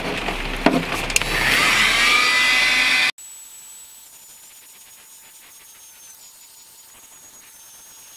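Electric heat gun switched on with a click, its fan motor spinning up with a rising whine into a steady blowing rush. The sound cuts off abruptly about three seconds in, leaving only a faint steady hum.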